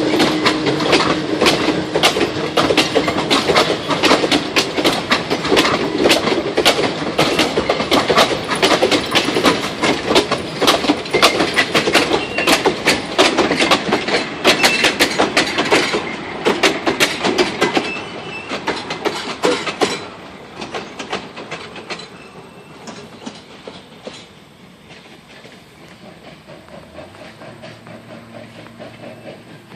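Century-old DL&W Boonton passenger coaches rolling past close by, their wheels clattering fast and steadily over the rail joints. The clatter fades away after about 20 seconds as the last car goes by.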